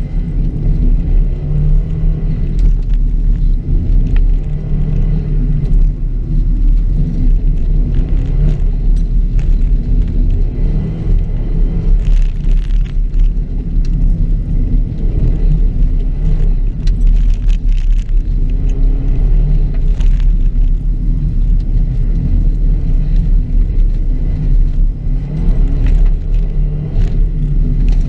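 A 2006 Subaru WRX's turbocharged flat-four engine running hard on a dirt rallycross course, its pitch rising and falling repeatedly through acceleration and lifts, over a heavy low rumble, with scattered sharp clicks.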